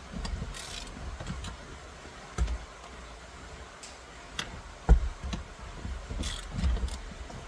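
Hand tools clicking and knocking on the steering-column nut as it is loosened, in irregular clicks and short scrapes, with one sharp metallic knock about five seconds in.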